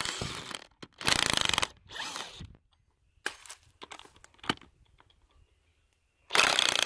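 DeWalt XR cordless impact wrench hammering in short bursts on a long bolt driven into a tree log, trying to back it out. Three bursts come close together, then a few scattered clicks, then another loud burst near the end.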